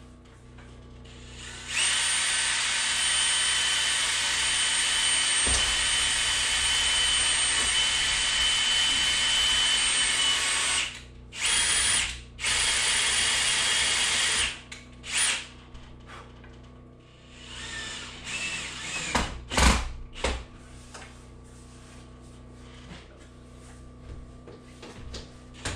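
Handheld power drill driving screws overhead, in one long steady run of about nine seconds followed by several shorter bursts. A few knocks and a sharp thump come about twenty seconds in.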